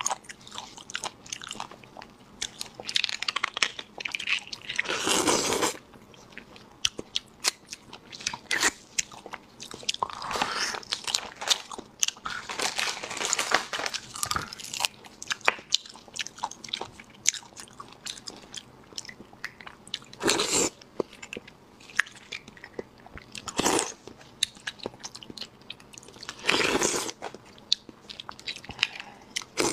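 Close-miked eating of spicy beef bone marrow: wet chewing and lip-smacking clicks, broken by several longer slurps as the soft marrow is sucked from the bone.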